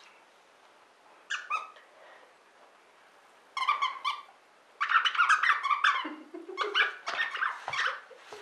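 The squeaker inside a plush fox dog toy squeaking as a basset hound chews and presses it: a couple of short squeaks about a second in, more near halfway, then a fast run of squeaks through the second half.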